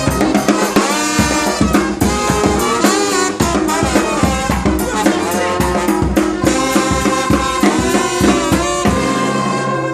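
Brass band music: horns playing over drums.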